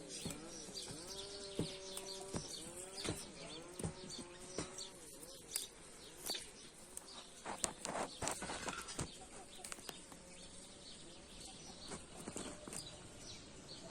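Farm animals calling with pitched, wavering cries in the first few seconds, over scattered small clicks and knocks and a brief rustle midway.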